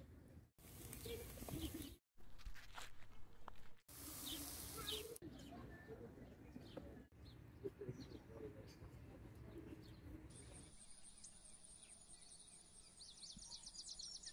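Quiet outdoor ambience with birds chirping, made of several short clips joined with brief dropouts between them. From about ten seconds in, a rapid, high chirping takes over.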